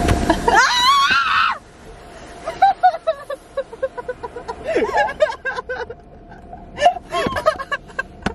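A woman's scream, high and wavering, about half a second in, over a loud low rumble that cuts off suddenly after about a second and a half; quieter broken voices follow.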